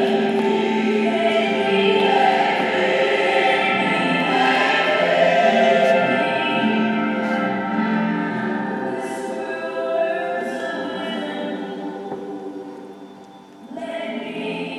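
Recorded song with a group of voices singing together over the backing music. The music fades about two-thirds of the way through and then swells up again near the end.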